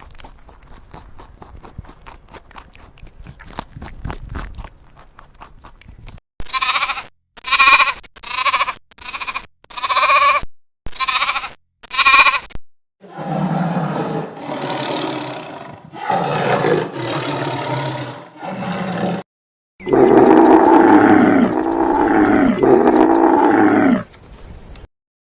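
A run of farm animal calls: first faint background noise with small clicks, then seven short pitched calls about once a second. Several longer, rougher calls follow, and then three loud, drawn-out calls that bend in pitch.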